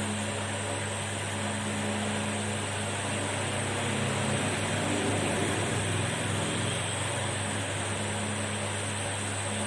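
Hot-air rework station blowing steadily while heating a phone's circuit board to melt the solder: an even hiss over a low hum, a little louder in the middle.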